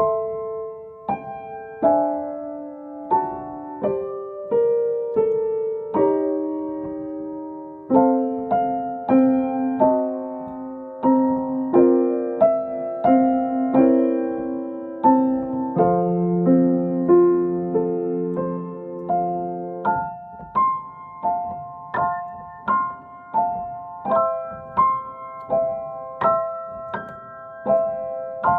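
A keyboard instrument with a piano sound playing a chime melody over chords, each note struck and left to ring away. In the last third the notes come quicker, in a higher repeated pattern.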